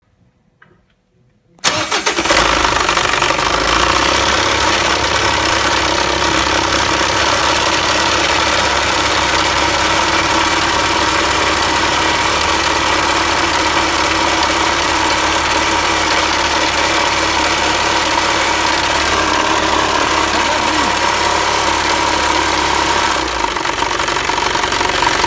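Mitsubishi L200 pickup engine starting up about two seconds in and then running steadily at idle, with the knock in the engine that the owner is chasing. The low rumble drops a little near the end.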